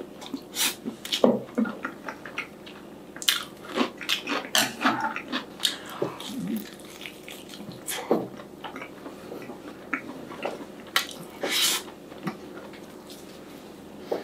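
Close-up eating sounds of a person biting into a sauced fried chicken drumstick and eating rice: bites and chewing, in short irregular bursts.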